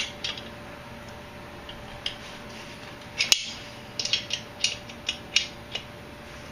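A metal wrench tightening a threaded air fitting into a small air compressor: short sharp metal clicks, the loudest about three seconds in, then a run of several clicks a few per second near the end as the fitting is drawn down as tight as it will go.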